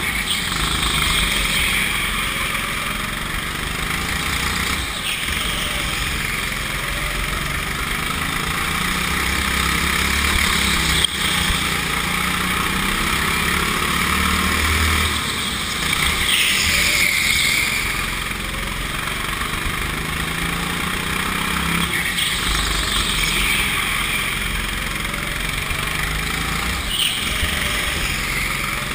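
Go-kart engine running under throttle, its pitch rising and falling through the corners, heard from onboard the kart. One sharp knock about eleven seconds in.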